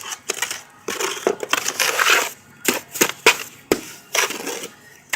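Steel trowel scraping gritty cement mortar onto the back of a stone veneer piece, buttering the stone: a run of rough scrapes with a few sharp knocks.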